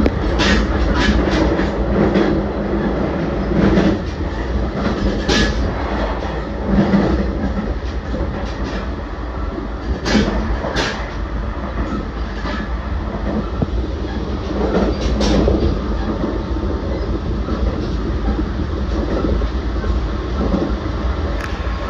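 JR Central 383 series limited express running at speed, a steady rumble with irregular sharp clacks from the wheels crossing rail joints.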